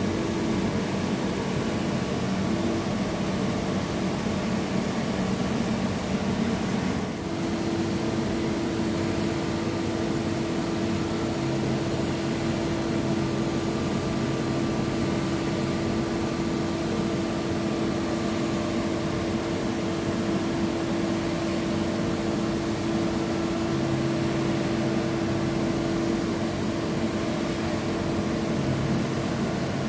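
AgieCharmilles CUT E350 wire EDM machine running a cut: a steady machine hum with a hiss. Its hum steps up in pitch about seven seconds in, and a lower hum comes and goes after that.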